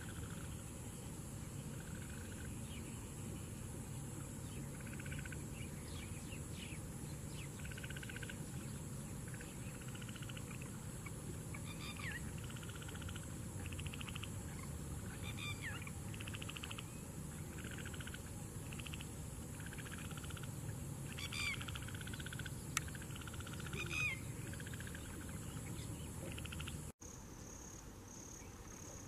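Wet-field ambience: a chorus of short trilled calls, repeated many times, over a steady high insect drone, with a few brief chirps. Near the end it cuts to a quieter, evenly pulsing high insect call.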